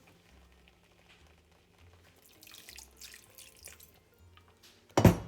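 Water poured into a pan of cooking curry paste, a splashing hiss for about two seconds in the middle, followed near the end by a single sharp knock, louder than anything else.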